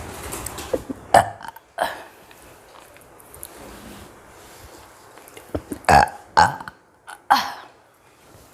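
A woman burping loudly in a string of short burps, brought on by eating potato chips: two close together about a second in, then three more between about six and seven and a half seconds in.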